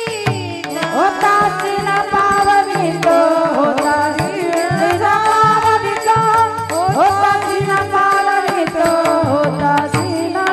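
A woman singing a Marathi devotional kirtan melody with long held, ornamented notes and pitch glides, over a steady drone and regular hand-drum strokes.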